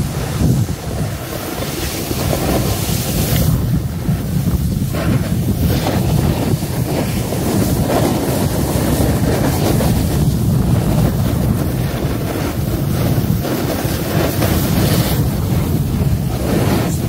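Wind buffeting the microphone over the steady hiss and scrape of a snowboard sliding and carving down a groomed slope, with a few louder swells of rushing noise.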